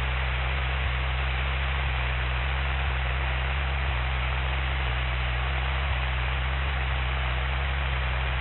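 Steady hiss and low drone over a cockpit intercom recording, the Cessna 172's engine held at full throttle on the takeoff roll.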